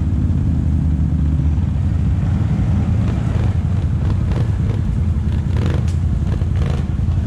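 ATV engine running steadily while riding, a constant low drone, with a few brief knocks over it.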